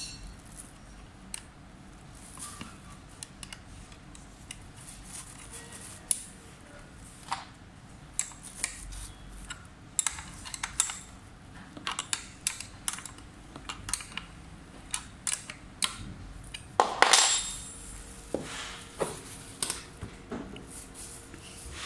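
Hand assembly of an electric scooter's saddle: irregular sharp metallic clicks and clinks from a small tool on the seat's clamp fittings, at times a few each second, with one louder burst of noise about seventeen seconds in.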